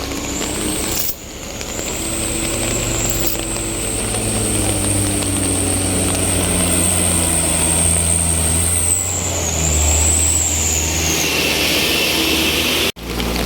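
Heavy truck engine running with slowly shifting pitch, a thin high whine held above it that dips and fades about eleven seconds in.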